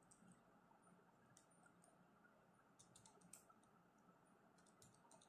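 Faint clicking of calculator buttons being pressed, in a few short runs of taps, as a quadratic is keyed in to find its roots.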